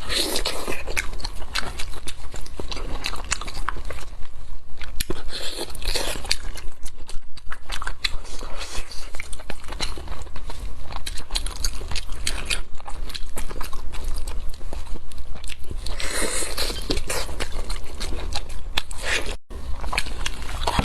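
Close-miked mouth sounds of someone eating spiced sheep's head: biting, chewing and crunching, dense crackling clicks with louder bursts around 6 and 16 seconds in. A steady low hum runs underneath.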